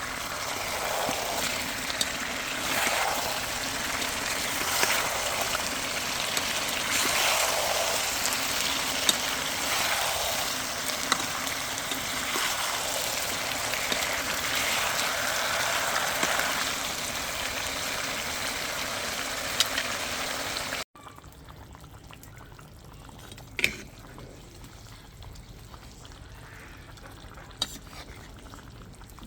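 Steady hissing noise of cooking, which cuts off abruptly about two-thirds of the way through and gives way to a much quieter background with a couple of sharp clicks.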